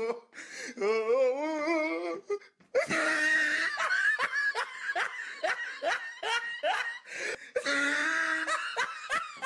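Hearty laughter: a wavering laughing voice at first, then from about three seconds in a long run of repeated ha-ha bursts, about three a second.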